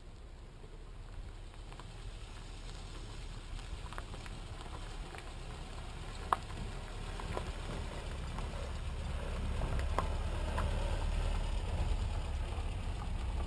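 Small pickup truck driving up a dirt road toward and past, its engine and tyres on gravel growing steadily louder. Scattered small clicks and pops of stones under the tyres, with a sharp one about halfway through.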